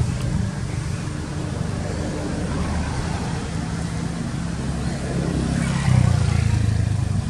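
Low, steady engine hum of a motor vehicle, growing louder about six seconds in.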